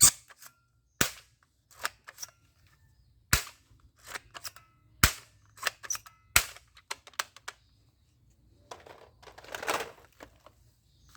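Toy soft-bullet gun being cocked and fired: about seven sharp snaps over the first seven seconds, with small clicks in between, then a rustling noise near the end.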